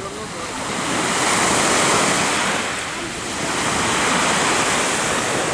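Waves of the Sea of Azov breaking and washing on the shore, swelling twice, with wind.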